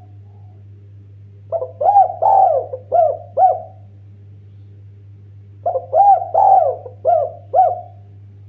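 Spotted dove (derkuku, tekukur) cooing: two phrases of four or five rounded coos each, a few seconds apart, over a steady low hum.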